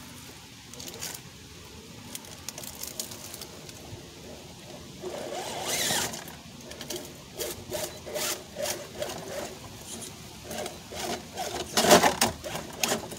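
Redcat Gen7 RC rock crawler's small electric motor and geared drivetrain whirring in spurts, with tyres and chassis scraping and knocking against rock. There is a rising whine about six seconds in, and the loudest clatter comes near the end.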